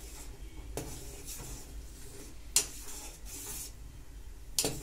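A steel ladle stirs milk in a stainless steel pot as lemon juice curdles it for paneer. It clinks against the pot three times, the middle knock the loudest, with soft swishing of the liquid between the clinks and a low steady hum underneath.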